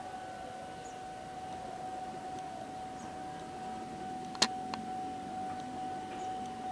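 A steady, unchanging tone over background noise, with one sharp click about four and a half seconds in and a smaller one just after.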